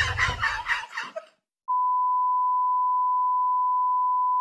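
Television colour-bars test tone: one steady, unwavering beep that starts about a second and a half in, holds for about three seconds and cuts off abruptly. Before it, a voice trails off in the first second, followed by a brief silence.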